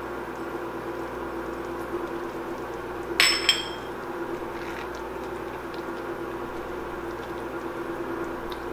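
Two quick, ringing clinks about three seconds in, a kitchen utensil knocking against a skillet, over a steady hum.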